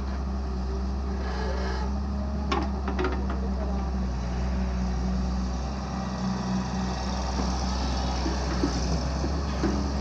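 Excavator's diesel engine running steadily with a low drone, with a few short knocks about two and a half to three seconds in.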